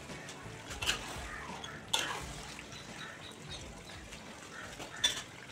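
Chicken gravy bubbling in a clay pot over a wood fire, a wet simmering sound, with a spatula stirring it later on. Three sharp clicks stand out, about a second in, two seconds in and near the end.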